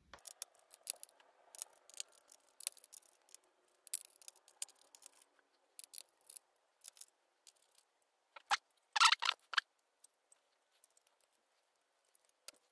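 A small precision screwdriver working the tiny screws of a Surface Pro 4's CPU heatsink: a run of light clicks and scrapes, with a louder burst of clicking and scraping about nine seconds in.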